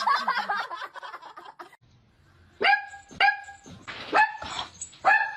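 A dog barking four times in short, sharp barks, starting about two and a half seconds in, after a brief jumble of noisy sound at the start.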